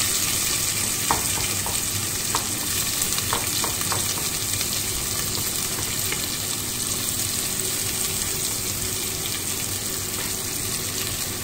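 Onions frying in hot oil in a pan with ginger and garlic, sizzling steadily while they are stirred, with a few light clicks of the spoon against the pan in the first few seconds.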